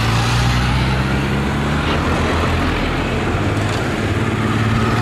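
Steady low engine hum over road traffic noise.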